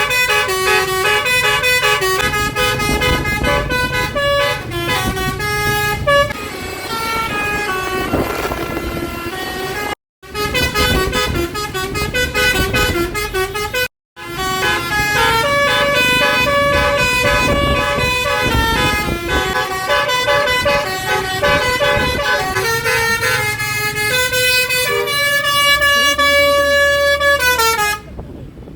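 Telolet basuri bus horn playing a fast tune of quick stepped notes over a bus engine's low rumble. The sound cuts out twice for a moment, and near the end the horn holds a chord that slides down and stops.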